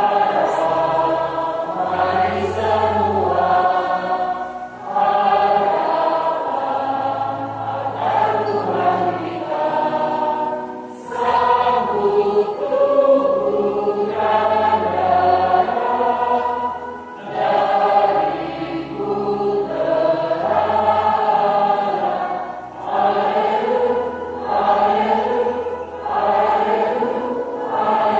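Church choir of mixed voices singing a hymn. It sings in phrases a few seconds long with short breaks between them, over sustained low notes.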